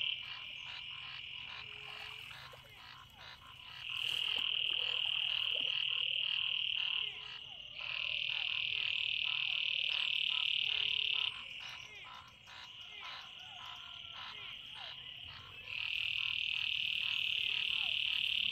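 A chorus of frogs calling. Loud, high trills come in spells of about three seconds, three times, with steady rapid pulsing calls between them.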